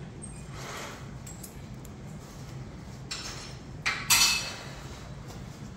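Jacket fabric rustling and swishing as it is pulled off and handled, with a sharp loud swish about four seconds in as it is lifted and shaken out, over a low steady hum.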